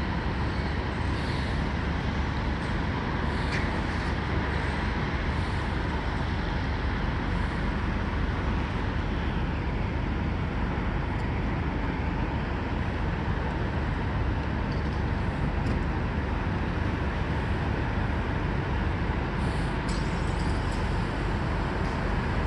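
Steady low rumble of idling semi-truck diesel engines mixed with traffic noise, with a few faint clicks.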